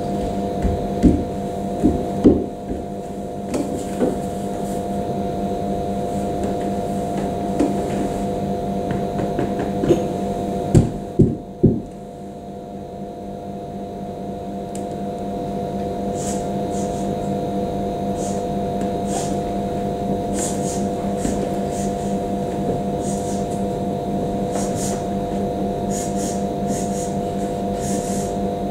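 A steady hum of several held tones, with a few knocks and thumps in the first dozen seconds as the dancer moves on the wooden table, and soft high clicks and rustles later on.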